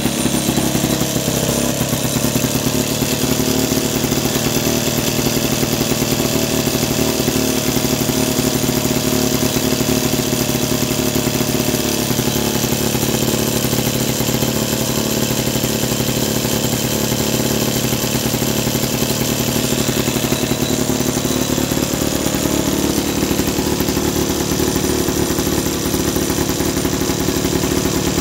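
Vintage Victa 18 rotary lawn mower's two-stroke engine running steadily on the spot. Its pitch settles slightly lower in the first couple of seconds.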